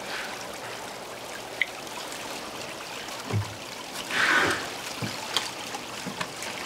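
Seawater trickling and running into live-fish tanks. A dull knock comes about three seconds in, and a net plunged into the tank splashes about a second later.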